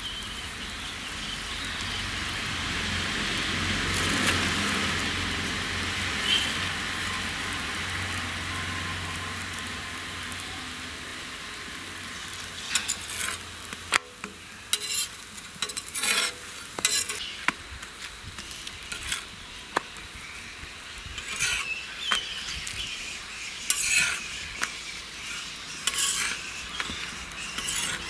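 Wheat parottas sizzling in oil on a large flat griddle, a steady hiss. From about halfway on, a steel spatula clicks and scrapes against the griddle again and again as the parottas are pressed and turned.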